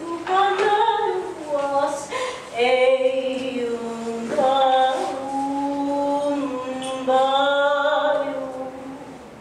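A woman singing long, held notes one after another, the first ones sliding in pitch and the later ones held steady for a second or two each, fading out near the end.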